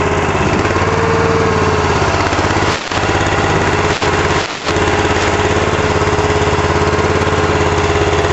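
Small engine of a Burro walkie forklift running steadily, with a steady whine over the engine note. The sound dips out briefly three times near the middle.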